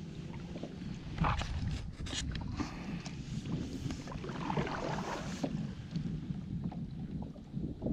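Wind buffeting the microphone over water slapping against a kayak's hull, with a few short knocks and a stronger gust in the middle.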